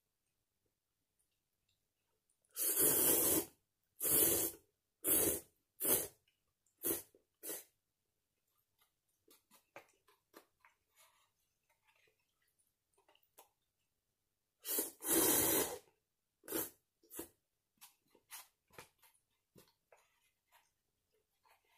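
Slurping of Chicken Ramen soupless aburasoba cup noodles: a long, loud slurp about three seconds in, followed by several shorter slurps that grow briefer, and the same again about fifteen seconds in. Faint chewing clicks fill the gaps.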